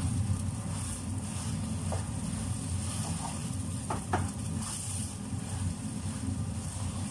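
Wooden spatula stirring food sizzling in a stone-coated pot on a gas burner, knocking against the pot a few times about four seconds in, over a steady low hum.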